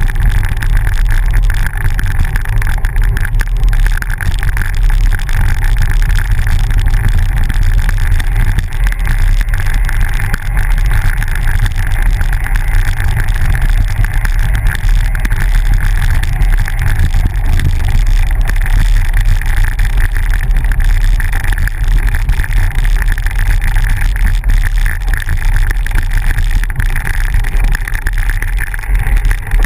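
Steady wind buffeting and road rumble from riding a bicycle along a gravel road, heard through an action camera's microphone; a heavy low rumble runs unbroken throughout.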